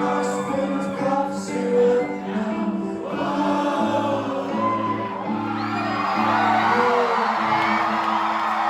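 Live indie rock band playing held chords with many voices singing along. About halfway through, crowd whoops and cheers rise over the music.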